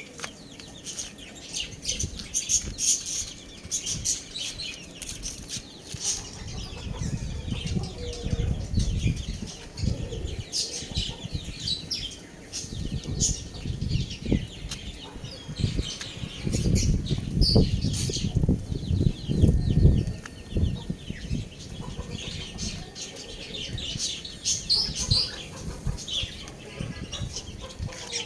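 Young chickens chirping and clucking, with repeated bursts of wing flapping that are strongest in the middle of the stretch.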